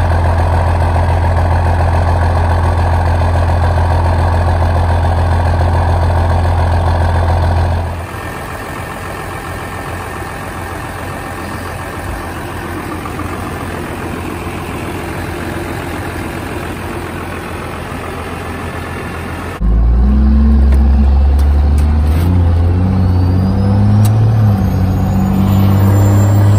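12-valve Cummins diesel running steadily, heard first at the tailpipe and then over the engine bay. Then, from inside the cab, the truck pulls away and accelerates, and thin high whistles from the T51R-modded BorgWarner SXE364 T4 turbo rise with the revs near the end.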